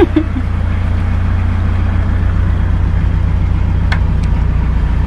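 Narrowboat's diesel engine running steadily at cruising speed, a deep even hum, with a faint click about four seconds in.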